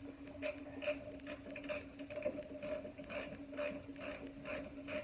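Faint light clicks, about two or three a second, over a steady low hum.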